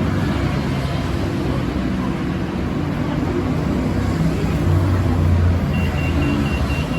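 BTS Skytrain train heard from inside the car while running between stations: a steady rumble with a shifting low motor hum. Near the end comes a quick run of short high beeps, about four a second.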